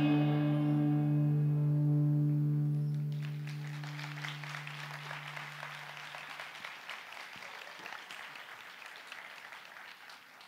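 The last held note of a song rings on and fades away over about six seconds. Audience applause starts about three seconds in and dies down near the end.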